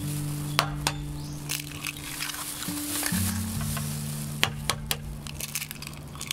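Background music with low held notes, over a few sharp clicks and crackles from raw eggs being cracked into a ceramic bowl and a plastic bag being handled.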